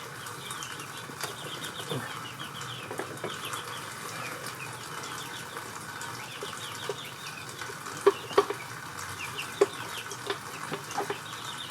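Scattered sharp metallic clicks and knocks, a few of them close together about eight seconds in, as the gearshift linkage of a 1985 Honda VT700C engine is rocked loose from its shift pin. Short, high chirps repeat quietly in the background.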